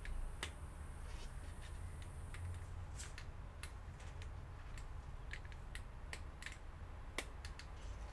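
Scattered, irregular light clicks and ticks of gloved fingers pressing on and handling the plastic edge of a laptop LCD panel, over a low steady hum.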